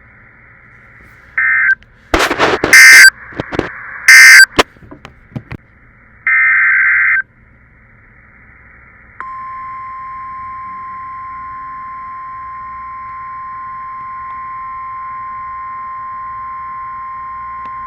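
Emergency Alert System tones from NOAA Weather Radio, heard over a radio receiver with faint hiss. Several short bursts of screeching digital data come in the first seven seconds, two of them very loud. About nine seconds in, the steady warning alarm tone starts, a single unbroken beep held to the end, signalling a new warning.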